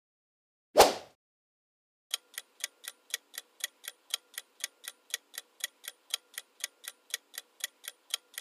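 Clock-ticking countdown sound effect, about four ticks a second, starting about two seconds in, while a quiz answer timer runs. Before it, about a second in, comes a single short pop as the word appears.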